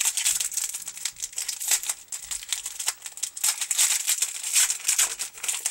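Foil trading-card pack wrapper crinkling as it is handled and torn open: a dense run of quick, irregular crackles.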